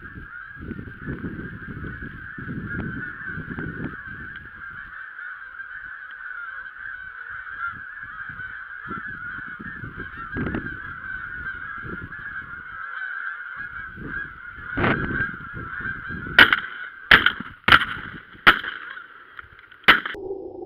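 A large flock of geese calling overhead, a continuous din of honking. Near the end comes a quick volley of about five shotgun shots over three or four seconds.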